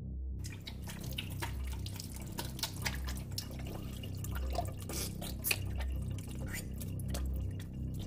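Liquid dripping and splattering: a dense, irregular run of wet drips and crackles that starts about half a second in, over a low pulsing bass.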